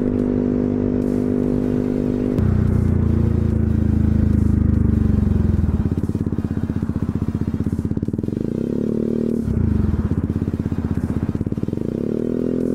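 Yamaha Zuma 125 scooter's single-cylinder engine running under the rider. It gets louder about two seconds in, rises in pitch as it accelerates later on, then changes abruptly and climbs again near the end.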